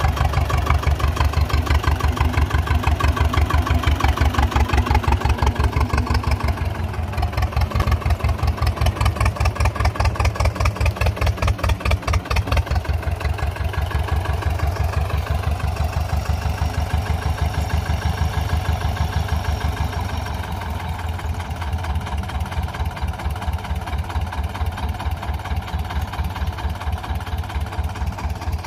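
A 1972 T-25 tractor's two-cylinder air-cooled diesel engine runs steadily with a rapid, even chug while pulling a disc harrow through the soil. It drops a little in loudness about twenty seconds in.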